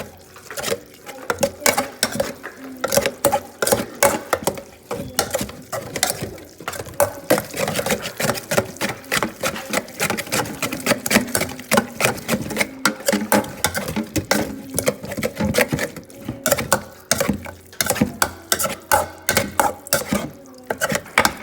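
Cutlery and dishes clinking and tapping during a meal, a busy run of quick clicks several times a second.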